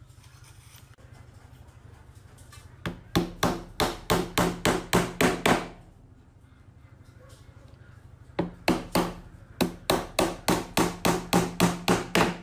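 Hammer driving small nails through a thin panel into a wooden box frame, in two runs of quick, even blows about four a second, with a pause of a few seconds between them. A steady low hum sits underneath.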